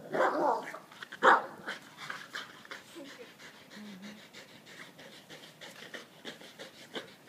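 Staffordshire bull terriers panting hard as they play tug-of-war, with quick, fairly regular breaths. Two loud short outbursts from the dogs come in the first second and a half.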